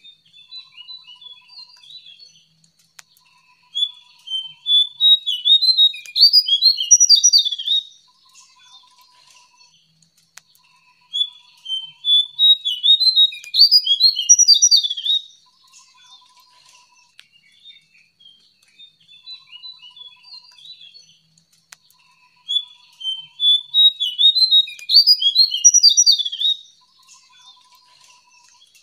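A songbird known in Indonesia as the jongkangan singing in three bursts of rapid, jumbled chattering notes, each about four seconds long and building to its loudest near the end, with pauses of several seconds between. A faint steady high whine and soft short low trills carry on through the pauses.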